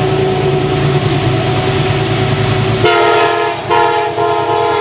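Amtrak passenger train rumbling steadily as it comes through the station. About three seconds in, its locomotive's multi-tone horn sounds, broken into a few blasts.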